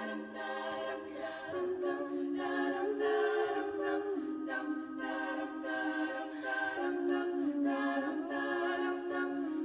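A cappella vocal group singing sustained chords without words, an interlude in a pop-song arrangement, with the harmony moving to a new chord every second or two.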